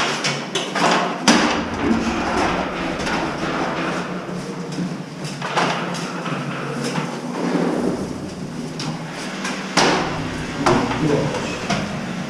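Mini excavator's diesel engine running steadily under the work, with irregular heavy metal knocks and clanks from the bucket and boom.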